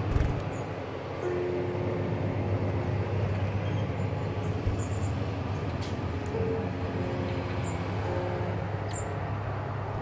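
A steady, loud rumbling noise, with a few short, faint high chirps over it.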